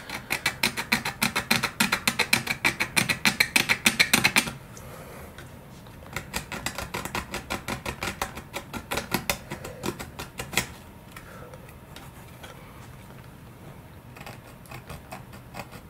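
Small needle file scraping paint off a model glider's fuselage in rapid back-and-forth strokes, roughing the surface for a glue bond. The strokes are strongest for about the first four seconds, come again through the middle, then turn lighter and fainter toward the end.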